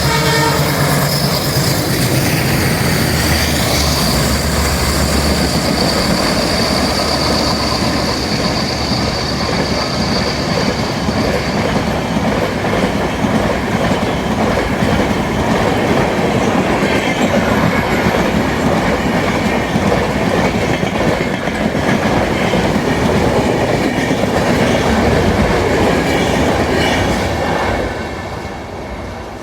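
LHB passenger coaches rolling past at speed, with a constant clatter of wheels over the rails. A steady high whine runs through the first ten seconds or so. The sound falls away near the end as the last coach goes by.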